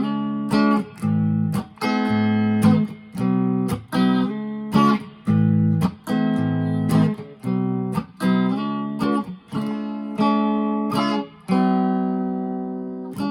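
1983/84 Japanese-made Squier Bullet electric guitar played on a clean tone: chords strummed about once or twice a second with short choked gaps between them, ending on a longer ringing chord.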